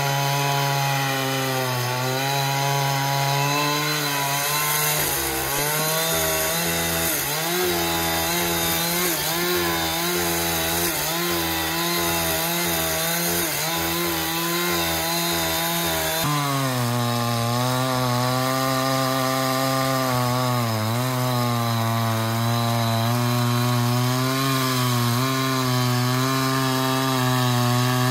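Power saw running and cutting wood, a steady motor hum whose pitch dips briefly now and then. The sound shifts abruptly about 16 seconds in.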